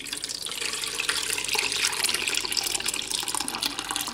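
Curdled soy milk, tofu curds in whey, poured in a steady stream from a stainless steel pot into cheesecloth and splashing as it strains: the curds are being separated from the whey.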